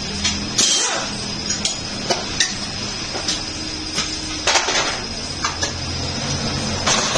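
Scattered metallic clinks and knocks from tyre-changing tools and wheel parts, a few louder than the rest, over a steady low machine hum.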